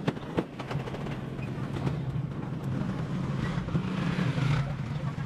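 A vehicle engine running steadily, with two sharp clattering knocks in the first half second.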